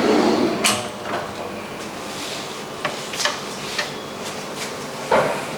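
Wardrobe drawers sliding open and shut on their runners, with a sharp click about a second in and a few lighter knocks and clicks after it.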